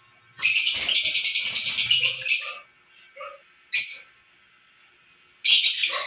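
Small caged parrots chattering and screeching in loud, rapid, high-pitched bursts: one lasting about two seconds, a short one near the middle, and another starting near the end.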